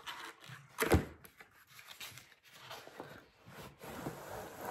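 Cardboard box of a diamond-painting kit being opened and handled: a sharp knock about a second in, then soft scraping and rustling of cardboard.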